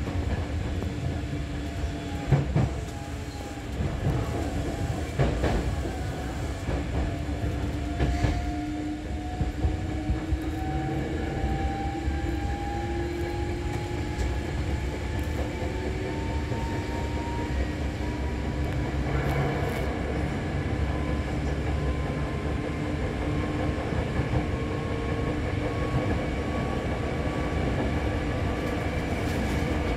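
Hankyu 6000 series electric train running, heard from inside the front of the car. The wheels clack over rail joints a few times in the first several seconds, and a motor whine slowly rises in pitch as the train gathers speed.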